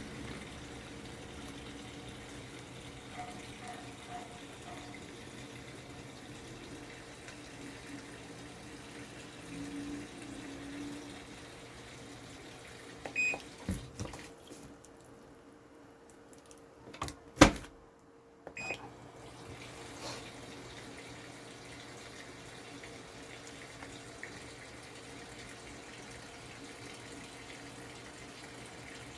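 Water running steadily into the tub of a TCL top-load washing machine as it fills at the start of a wash cycle. A little past the middle there are a few sharp clicks, one loud, and the water sound briefly drops away before resuming.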